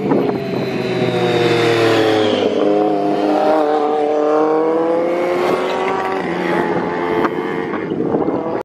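Superbike engine running at high revs, its pitch falling over the first couple of seconds, then rising again midway and holding high.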